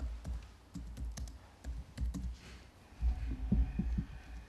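Typing on an Apple laptop keyboard: irregular keystrokes that come through as dull taps, with a quicker run of keystrokes about three seconds in.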